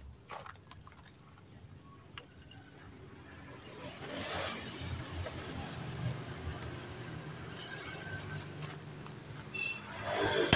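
A socket wrench being worked on a scooter's front axle nut: scraping and handling noise with scattered metal clinks. The sharpest clinks come near the end.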